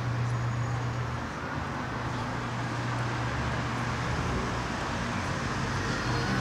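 City street traffic: a steady low engine rumble under an even wash of road noise.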